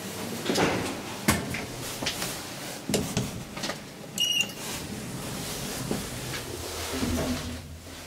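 Knocks and clicks inside a passenger lift car, with a short high beep about four seconds in as a floor call button is pressed and registered. The car's sliding doors then close.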